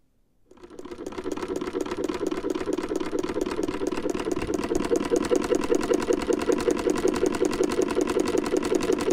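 Sewing machine starting up about half a second in and building to a steady, fast, rhythmic run, driven by its newly joined poly V belt.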